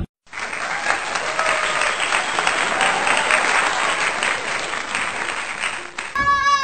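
A crowd applauding: steady, dense clapping with faint voices beneath. It cuts off abruptly near the end, and a child's high voice follows.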